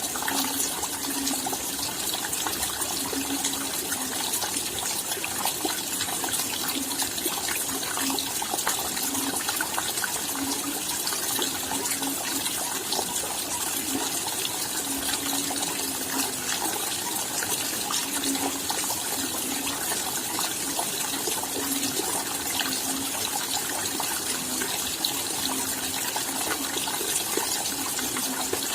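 Steady rain falling at night: an even hiss thick with small drop ticks, with a short low sound that comes and goes every second or so.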